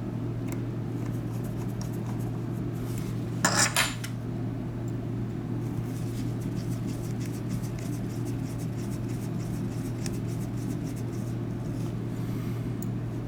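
Small metal repair tools and parts clicking and clinking on a work surface, with a quick run of three louder clinks about three and a half seconds in, over a steady low electrical hum.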